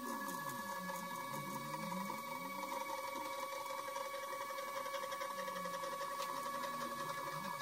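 Stepper motors driving the Z-axis of a DIY Hypercube Evolution 3D printer, raising the print bed on its threaded rods: a steady whine of several tones over a lower wavering hum.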